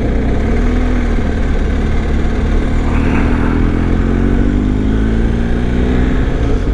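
BMW R1250 GS boxer-twin motorcycle engine running under way, its pitch climbing slowly as the bike gathers speed, over a heavy low wind rumble.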